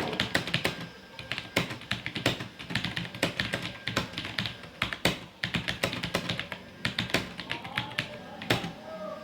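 TVS Gold mechanical keyboard being typed on: an irregular, fast run of sharp key clicks, several keystrokes a second.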